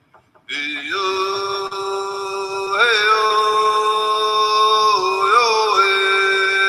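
A single voice holding long sung notes at the close of a rap song, with a brief melodic turn between notes about two and a half and five seconds in. It comes in after a half-second gap.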